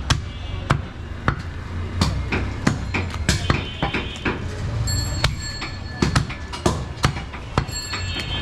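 Butcher's cleaver chopping goat meat and bone on a chopping block: a dozen or so sharp chops, a little under a second apart.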